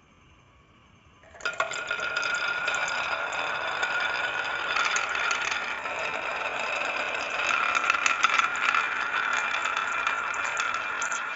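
Marbles rolling and clattering down a marble run track, starting suddenly about a second and a half in and running on as a steady rattle with many small clicks.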